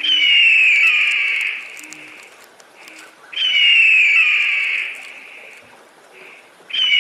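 Eagle scream: a long, high, falling screech, given twice and starting a third time near the end, each one preceded by a short note.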